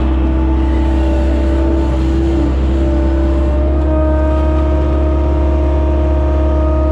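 John Deere skid steer's diesel engine running steadily, a constant drone with a steady whine over it that steps up slightly about two and a half seconds in and again around four seconds in.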